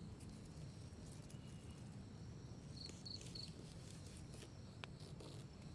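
Faint outdoor ambience over a low rumbling background, with a cricket chirping a quick run of three high, evenly spaced pulses about three seconds in.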